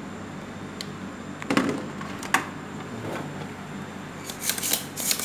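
Clicks and knocks of hand tools worked against a washing machine's control board while a component is desoldered, with a sharp click about two seconds in and a quick cluster of crisp clicks near the end. A steady low hum runs underneath.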